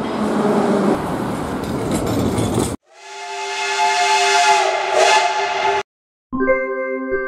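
Rushing noise of a train going past, then a steam locomotive's whistle sounding several tones at once for about three seconds over hissing steam. After a short silence a keyboard music jingle starts near the end.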